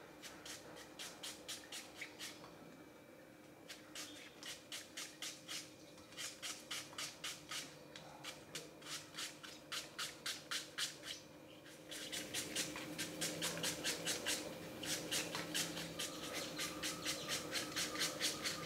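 Knife slicing thin pieces off a handheld peeled apple, a steady run of crisp cuts about three a second, with a short pause about two seconds in.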